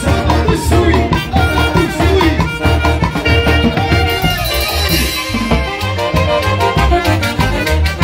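Live Peruvian huayno dance orchestra with saxophones, clarinet and drum kit playing a lively tune over a steady drum beat, with a cymbal wash about halfway through.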